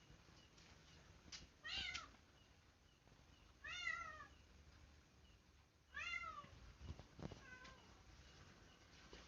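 Domestic cat meowing: three drawn-out meows a couple of seconds apart, then a short fainter one. Faint clicks are heard in between.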